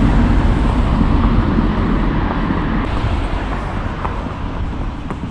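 Steady rushing road-traffic noise, heaviest in the low end.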